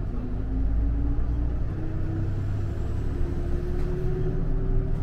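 A vehicle engine running with a heavy low rumble, its pitch rising slowly and steadily as it speeds up.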